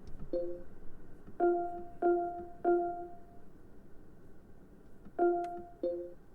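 Background music: sparse, softly struck piano-like notes, three of them repeated on one pitch in the middle.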